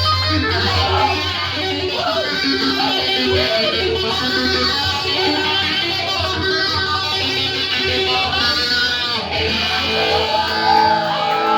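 Live rock band playing: electric guitar over a steady bass line. The low bass stops near the end, leaving held guitar notes with bending pitches.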